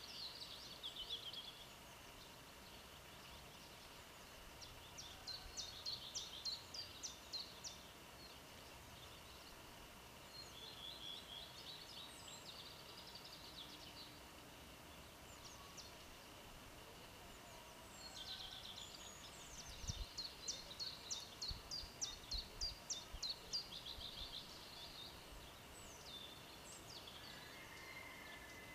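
Songbirds singing: several phrases of quick, repeated high chirps, the longest starting about 18 s in and running several seconds, with pauses between phrases.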